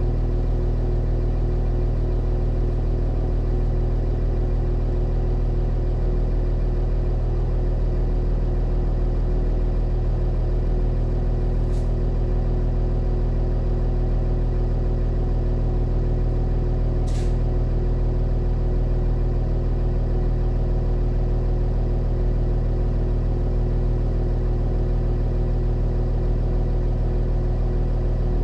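New Holland F156.6A motor grader's diesel engine running steadily at a constant speed while grading a dirt road. Two faint short ticks come through about five seconds apart partway through.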